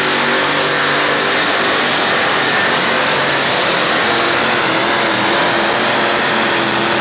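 Pulling truck's engine running hard and loud at high revs as it drags a weight-transfer sled down the pulling track, a steady roar with a held engine tone over the second half.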